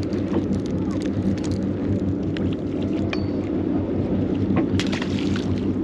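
The charter boat's engine running steadily with a low hum, with scattered short clicks over it.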